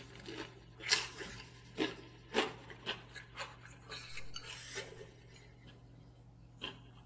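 A person eating noodles with chopsticks from a small ceramic bowl: quiet scrapes, clicks and chewing sounds, with a handful of short sharp clicks at irregular intervals.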